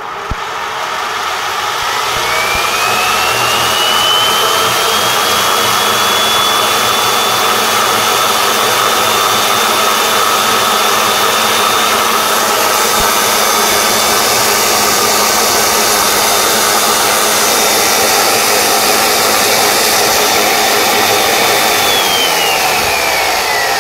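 3D-printed side channel (regenerative) blower, belt-driven by a small motor, running at speed with a loud airy rush and a high whine. The whine rises as it spins up over the first few seconds, holds steady, then drops in pitch near the end.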